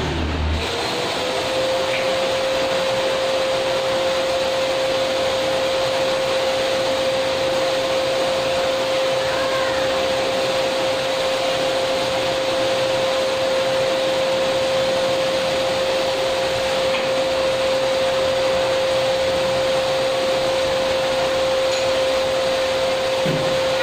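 Canister vacuum cleaner running steadily: a continuous rush of air with a single steady whine from the motor. It cuts off at the very end.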